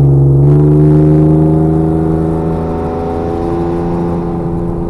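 2003 Ford Explorer Sport Trac's 4.0 L V6 pulling hard under acceleration, heard from inside the cab, through a full aftermarket exhaust of short-tube headers, an X-pipe and a Magnaflow Race Series muffler. The engine note jumps up at the start and stays loud and fairly steady.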